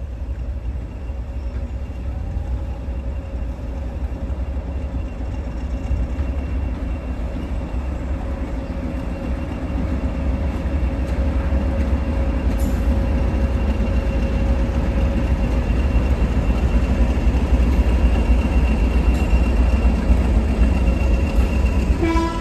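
A Class 58 and a Class 20 diesel-electric locomotive, double-headed, running with a low engine drone that grows steadily louder. A horn starts at the very end.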